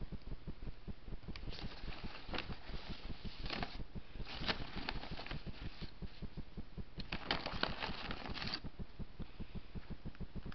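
Paper takeout bag crinkling and rustling as it is handled, in three bouts: about a second and a half in, around four and a half seconds, and about seven seconds in.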